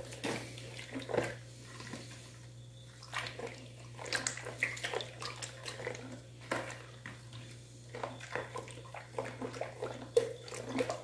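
A spoon stirring liquid in a bowl: soft sloshing with scattered light clinks, as dry yeast is mixed into warm water and condensed milk.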